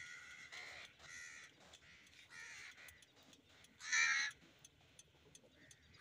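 Crows cawing repeatedly from the tree: a run of short calls, the loudest about four seconds in.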